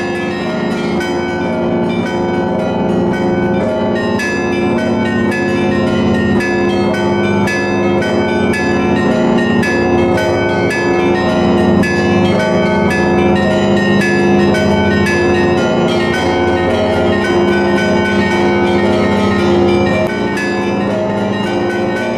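Russian Orthodox church bells ringing a festive peal: many bells struck one after another in quick succession, the higher bells over the lasting hum of the larger ones.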